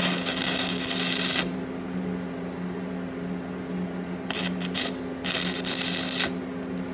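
Stick-welding arc crackling and hissing in two short runs, about a second and a half at the start and about a second near the end, with a few quick arc strikes between them, over a steady machine hum. Weld beads are being built up on a broken motor-mount bolt stub.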